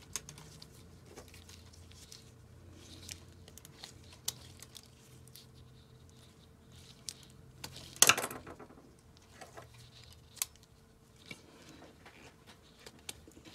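Small wire-stripping pliers cutting and pulling the insulation off the ends of thin power-supply wires: scattered sharp clicks and snips, the loudest about eight seconds in.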